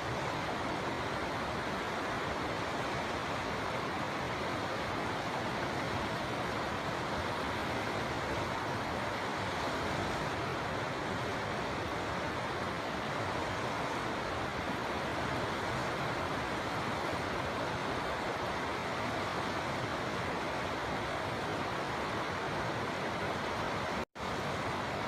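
River water flowing in a steady, even rush, with a split-second dropout about a second before the end.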